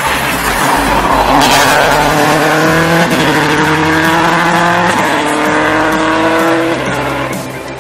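A rally car's engine at full throttle, pulling away and rising in pitch through the gears, with a gear change about five seconds in, then fading as the car goes off up the road. A short rush of noise about a second and a half in.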